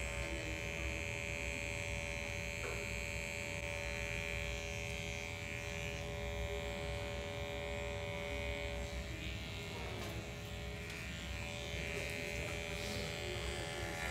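Electric hair clippers buzzing steadily as they shave the hair at the nape of the neck, easing slightly about ten seconds in.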